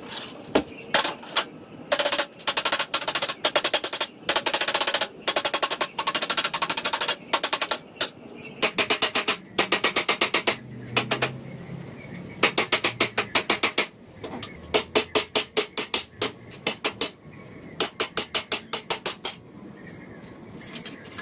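A power tool hammering in short bursts of rapid impacts, stopping and starting over and over.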